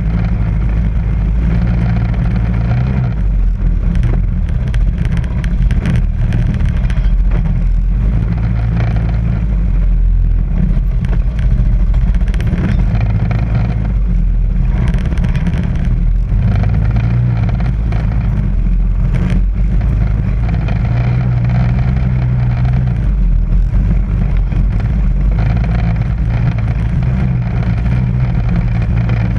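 ATV engine running steadily as it crawls over slickrock, with a few short knocks and rattles here and there.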